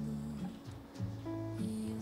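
Instrumental background music, its notes changing about every half second.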